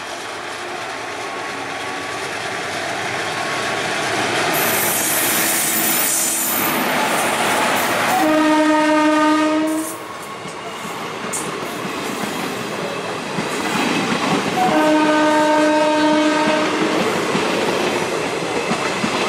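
Express train passing close by: the rumble of an Indian Railways electric locomotive builds as it approaches, a locomotive horn sounds one steady blast of about a second and a half, then passenger coaches rush past with wheel clatter on the rails, and a horn blows again for about two seconds.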